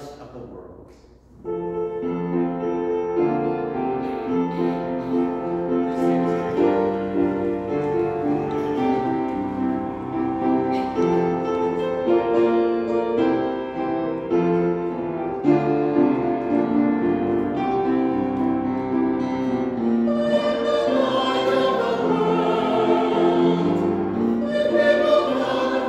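Church music: a keyboard instrument starts playing slow, held chords about a second in. Singing voices join in about twenty seconds in.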